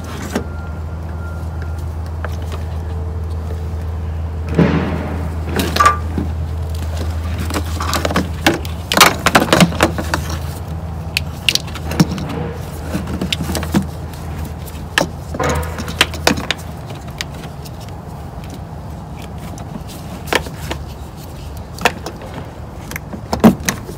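Clicks, rattles and rustling of plastic wiring connectors and the plastic headlight housing being handled and plugged together, over a steady low hum that fades out about two-thirds of the way through.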